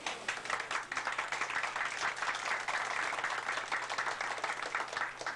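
Audience applauding: many people clapping at once, stopping at the very end.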